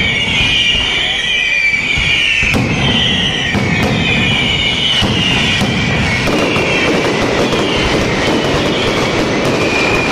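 Mascletà fireworks by Pirotecnia Crespo: many whistling fireworks shrieking at once, their wavering shrill whistles laid over a continuous dense crackle of firecracker bangs. About six seconds in the whistles thin out and the crackling grows.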